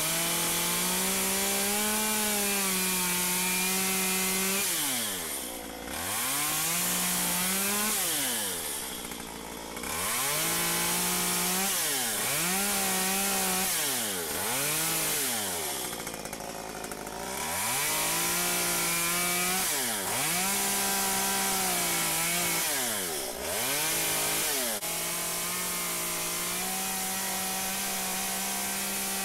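Stihl MS 193 C two-stroke chainsaw cutting into a small block of wood: the engine is held at full throttle through each cut and drops back toward idle between cuts about eight times, each drop a falling then rising whine.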